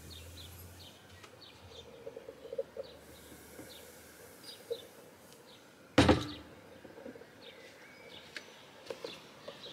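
Small birds chirping faintly and repeatedly. About six seconds in comes a single sharp clunk, the stainless milk-frother jug set down on the counter.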